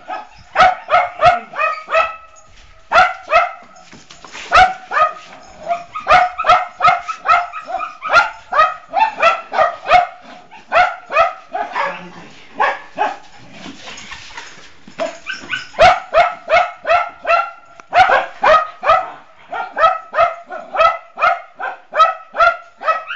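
Pit bull barking over and over, about three high-pitched barks a second, with a break of a few seconds about halfway through.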